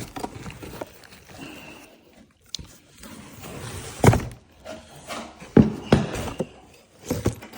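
A few knocks and clunks of lawnmower deck parts being handled: one sharp knock about four seconds in, then two more close together a second and a half later.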